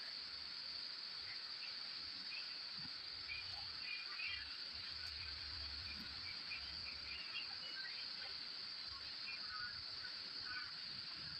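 Faint steady background ambience: a constant high-pitched hum with scattered faint short chirps throughout.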